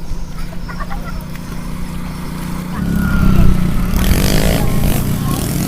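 A small fishing boat's engine running steadily, then opened up and louder about three seconds in, with a rush of wind and water noise over it from about four seconds in.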